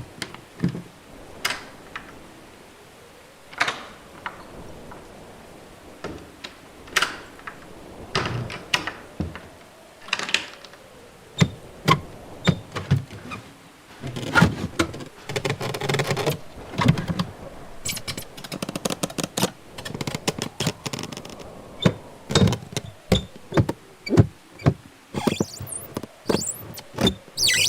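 A run of door sounds one after another: sharp clicks, knocks and thunks of doors being worked and shut. They are a second or two apart at first and come thick and fast in the second half.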